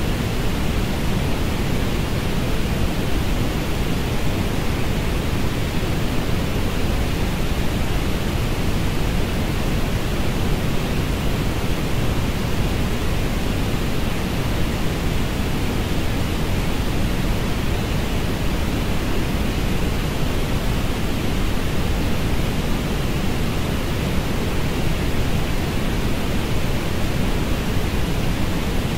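Synthetic orange noise: a steady, unchanging hiss that is heavier in the low end and thins out toward the top.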